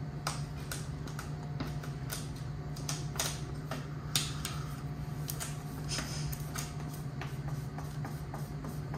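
Satin black vinyl wrap film being peeled back and repositioned on a plastic console trim piece: scattered crackles and ticks of the film and its adhesive, over a steady low hum.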